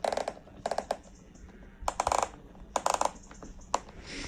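BOA dial on a cycling shoe being turned to tighten the laces, ratcheting in short bursts of rapid clicks, about half a dozen times.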